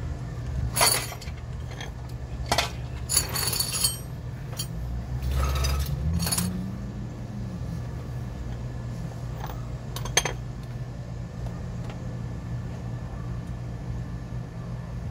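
Metal hand tools and parts clinking and clanking several times as they are handled and set down, mostly in the first half, then once more about ten seconds in. A steady low hum underneath, with a low rumble swelling and fading around the middle.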